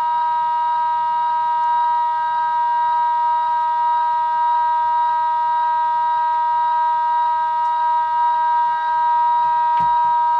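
A single steady pitched tone with overtones, held unchanged and loud.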